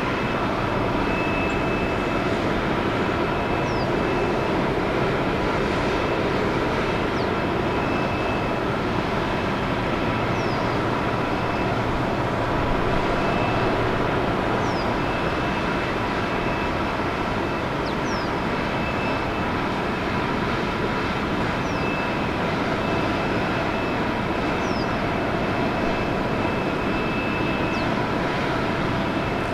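Airliner jet engines running steadily: a continuous whine over a broad rumble, with no swell or fade.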